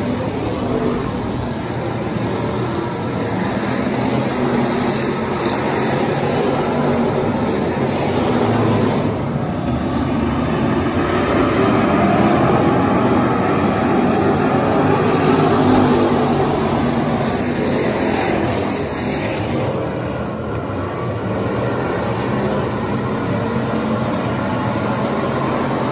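Engines of a field of factory stock dirt-track race cars running around the oval together, getting louder about halfway through as the pack comes by and then easing off.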